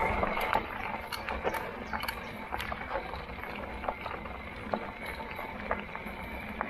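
Ride noise from an electric fat-tyre bike on a rough trail: a steady rumble with many irregular clicks and rattles.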